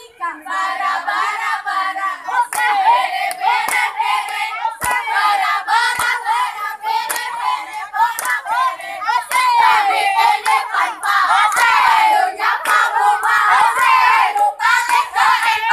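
A group of girls' voices chanting and singing a yel-yel cheer together in a sing-song way, with hand claps in time.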